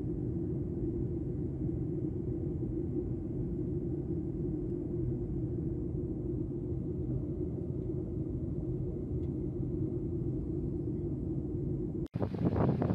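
Steady low drone of an aircraft, heard from on board. About twelve seconds in it cuts off abruptly and gusty wind buffeting a microphone takes over.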